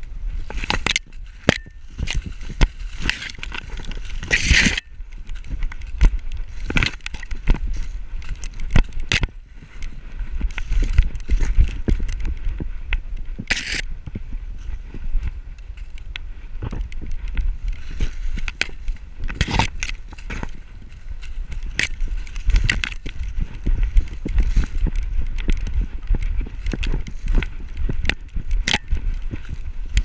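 A dog running through snow and dry corn stalks, heard from a camera on its back: irregular crunching, rustling and knocking as stalks and snow brush the mount, over a steady low rumble from the jostling camera.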